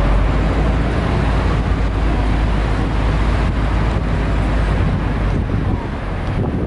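Wind buffeting the microphone on the open top deck of a moving double-decker tour bus, over the bus's engine and road noise: a steady heavy low rumble with a rushing hiss, easing slightly near the end.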